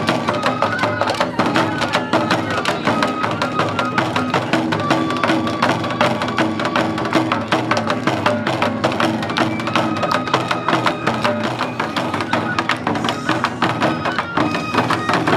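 Live shishi furi lion-dance festival music: rapid taiko drumming with a bamboo flute melody held above it.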